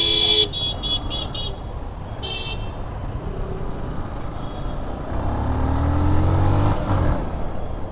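Vehicle horns in road traffic: one honk right at the start, then several quick short toots, over steady road and wind noise. About five seconds in, an engine speeds up with a rising pitch for about two seconds, then fades.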